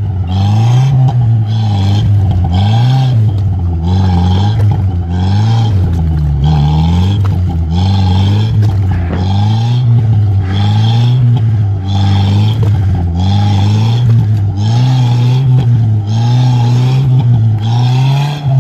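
A LuAZ off-roader's engine revving hard while the vehicle is stuck in mud, its rear wheel spinning and churning the mud. The revs rise and fall about once a second as the driver rocks it forward, but it does not get free.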